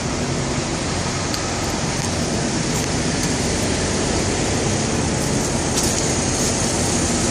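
Steady low mechanical rumble with a hiss above it, at a truck-stop diesel fuel island while a semi's tanks are being filled.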